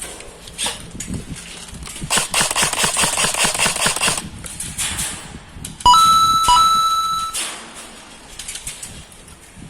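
Airsoft gun firing on full auto: a rapid clatter of shots lasting about two seconds. A few seconds in comes a sudden loud clang with a steady high metallic ring that dies away over about a second and a half.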